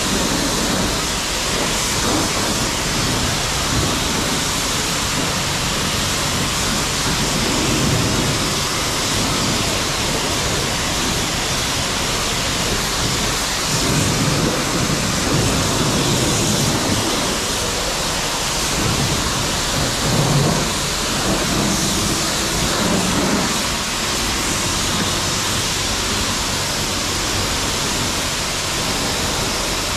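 High-pressure washer wand spraying water onto a truck: a loud, steady hiss with heavier splashing swells now and then as the spray strikes different surfaces.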